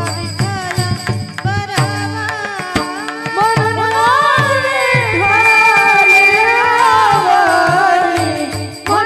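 Kirtan devotional music. Hand-drum strokes play over a steady drone for the first few seconds, then a woman's voice takes a long, ornamented sung line that glides up and down.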